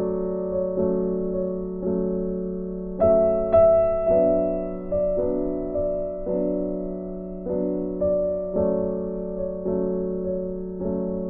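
Background piano music: a slow, gentle piece of single notes and chords struck about once a second, each fading away.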